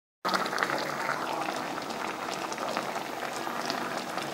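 Brown-sugar braising sauce bubbling hard around climbing perch in a pot: a steady crackle of many small pops.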